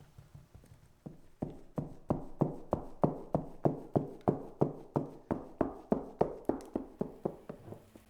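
Steady rhythmic knocking of a kitchen utensil, about three sharp strokes a second, starting about a second in and tapering off near the end.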